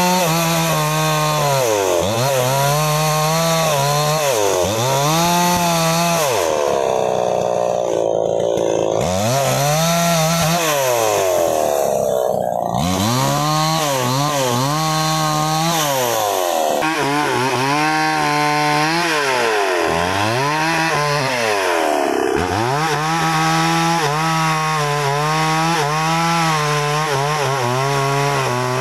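New West 628 two-stroke chainsaw revving up and dropping back again and again, with longer stretches held at full speed while it cuts through felled sengon logs.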